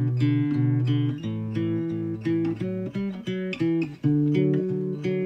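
Background music: a plucked guitar playing a melody of held notes that change every second or less.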